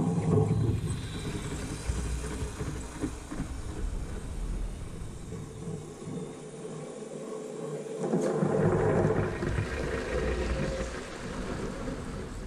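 Motorized Lego trains rolling on plastic Lego track, a steady rumbling clatter of wheels. It is loudest as trains pass close at the start and again from about eight seconds in, and quieter in between.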